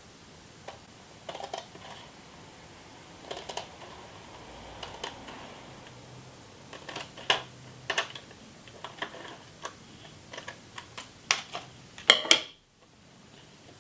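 Scattered light clicks and short crisp snips as a thin polyester filter sheet is trimmed and handled against its plastic frame, the loudest cluster about twelve seconds in.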